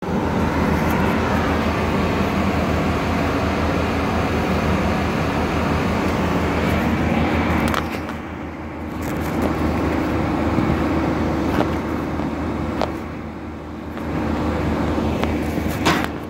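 Heavy engine-driven machinery running steadily with a low, even hum. It eases off and builds again twice, and a few sharp clacks come through, the loudest near the end.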